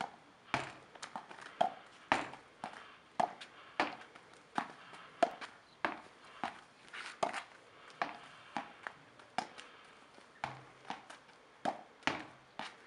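A child's small plastic racket hitting a ball against a wall. It makes a steady series of sharp knocks, about two a second, as the ball strikes the racket, the wall and the paving.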